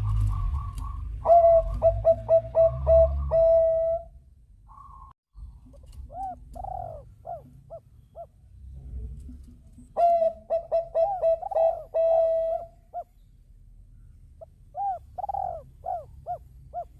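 Perkutut bangkok (zebra dove) cooing. Twice comes a quick run of loud, clipped staccato notes, and each run is followed a few seconds later by a handful of softer notes that rise and fall.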